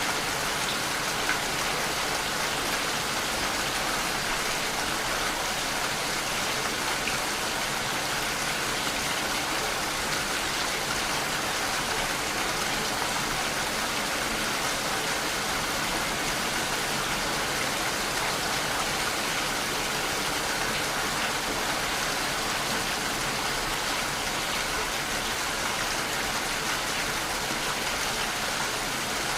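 Steady heavy rain falling, an even hiss of rainfall without let-up.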